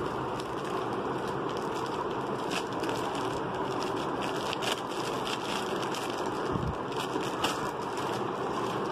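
Clear plastic sleeve crinkling in short, sharp crackles as it is handled and pulled off a new wallet, over a steady background hiss.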